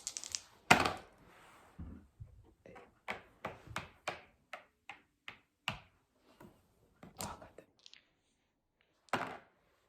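A string of light knocks and taps: one sharp knock about a second in, then a run of quick taps, two or three a second, and a couple more near the end.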